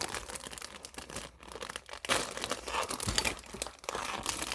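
Crinkly plastic packaging rustling and tearing as a pop-it fidget toy is unwrapped, in irregular crackles.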